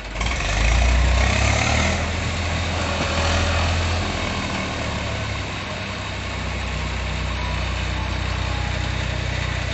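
Eicher 480 tractor's diesel engine revving up just after the start, then running steadily at high throttle as the tractor strains against a loaded trailer stuck in mud.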